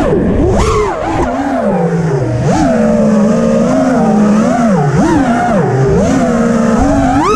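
FPV freestyle quadcopter's brushless motors whining, the pitch swooping up and down constantly with the throttle, dropping low around two seconds and five seconds in.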